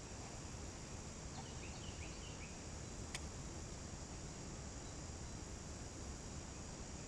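Quiet riverbank ambience: a steady low hiss and rumble, with a few faint short bird chirps about a second and a half in and a single sharp click about three seconds in.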